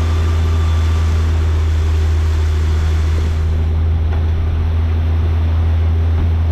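Small boat's outboard motor running at a steady speed, with wind and water noise over it.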